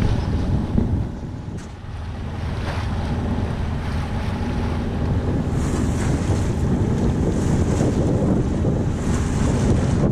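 Wind buffeting the microphone over the rush and splash of water along a small sailboat's hull, with the low steady drone of its diesel engine underneath while motor sailing. About halfway in, the hiss of the bow wave grows stronger and comes in surges.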